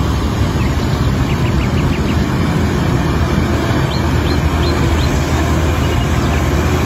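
Heavy dump truck loaded with rock, its diesel engine running as it wades through a shallow river, with the rush and splash of water around its wheels. A few faint short high chirps ride over it about a second in and again around four seconds in.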